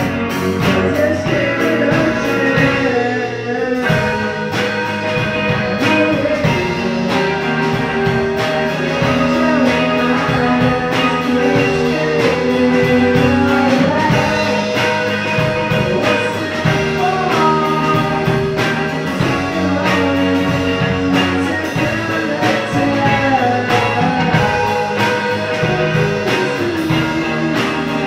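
A band playing a song: guitar and singing over a steady beat.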